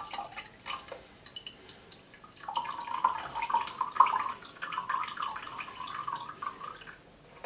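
Water draining from a portable air conditioner's tank through a loosened drain screw into a pint glass: scattered drips at first, then from about two and a half seconds in a steady trickle that stops near the end.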